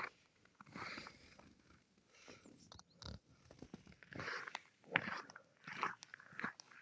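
Footsteps crunching in old, thawing snow: uneven crunches about once a second as someone walks along a forest path.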